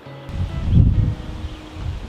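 Wind gusting against the microphone: a low rumble that swells about half a second in and eases off, over faint background music.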